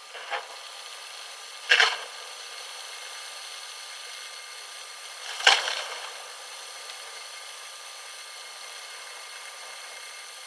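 Steady hiss of heavy rain, with rainwater spilling from overflowing gutters. Three short, loud, scraping bursts stand out: one just after the start, one near two seconds in, and the loudest about five and a half seconds in.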